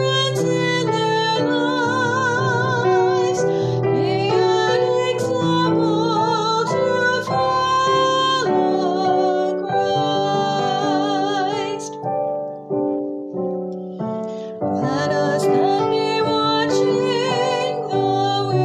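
A woman singing a slow song with vibrato over instrumental accompaniment. About twelve seconds in the music thins to a few fading notes, then the voice and accompaniment come back in.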